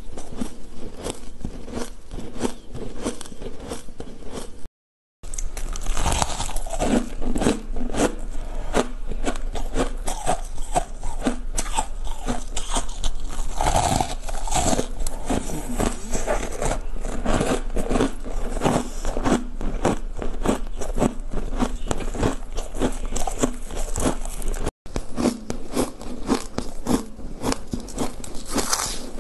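Shaved ice being bitten and chewed close to the microphone: a dense run of quick, crisp crunches, broken by a moment of silence about five seconds in and again about 25 seconds in.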